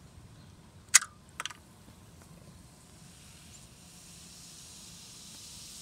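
A sharp click about a second in, with a couple of lighter taps just after. Then Coca-Cola fizzing up in an opened can after a Mentos is dropped in: a hiss that grows steadily from about three seconds in.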